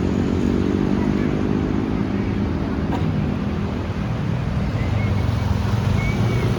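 Bus engine running close by, its pitched note fading over the first two seconds into a low, steady rumble. No telolet horn sounds.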